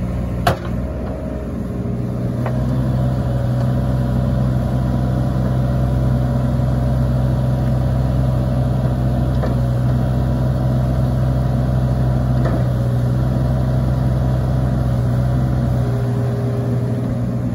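Cat mini excavator's diesel engine running steadily under load as the upper structure and boom swing from side to side, the engine note rising about two seconds in and then holding steady.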